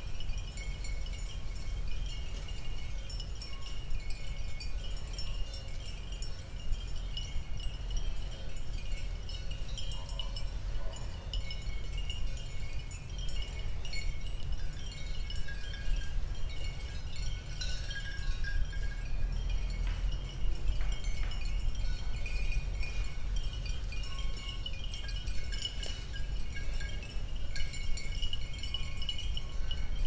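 Bells on grazing cattle clinking and tinkling irregularly as the cows move their heads, over a low steady rumble.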